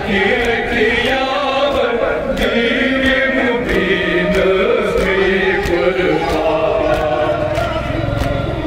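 A group of mourners chanting a Kashmiri nauha, a Muharram lament, together in a slow wavering melody, with sharp regular slaps about once or twice a second from hands beating on chests (matam).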